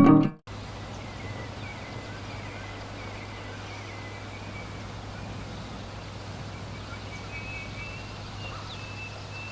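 Plucked-string music cuts off about half a second in, leaving outdoor ambience: an even background hiss with a steady low hum and faint, high bird chirps, which come up again near the end.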